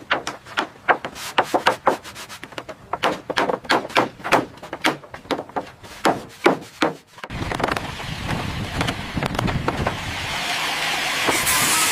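A rapid, irregular series of sharp knocks and strikes, about three or four a second, for around seven seconds. Then a steady rushing noise starts and grows louder towards the end.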